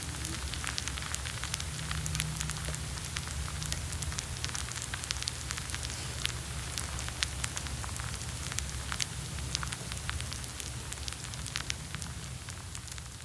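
Close-miked crackling and fizzing of wet coffee grounds during brewing, many tiny bubbles popping in a steady dense crackle, over a low steady hum.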